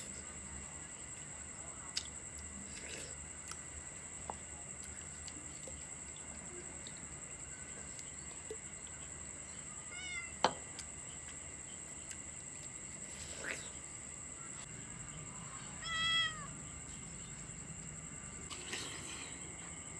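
A domestic cat meowing twice: a short, faint meow about ten seconds in and a longer, louder meow at about sixteen seconds.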